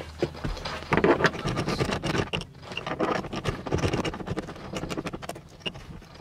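A seat-rail bolt being undone in a car's floor: an irregular run of quick clicks and scrapes of metal on metal from about a second in, with the bolt turned out by hand near the end.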